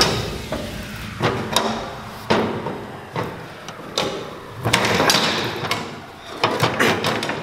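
Metal hand tool prying and knocking at a fuel-line fitting on a truck's fuel tank: a dozen or so irregular knocks and scrapes, some in quick clusters.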